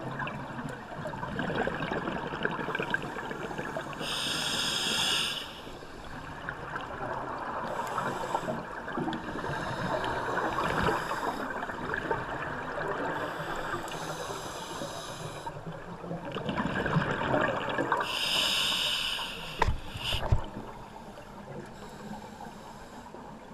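Scuba diver breathing through a regulator underwater: a hissing inhalation about four seconds in and another near the end, with the rushing gurgle of exhaled bubbles in between. Two short knocks follow the second inhalation.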